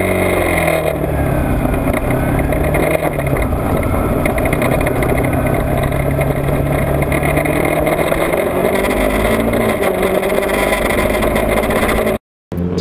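Sport motorcycle engines accelerating through the gears as the group pulls away and rides on, the pitch rising and falling with each shift and then holding steady, heard with heavy wind rumble on the bike-mounted camera. The sound cuts out for a moment near the end.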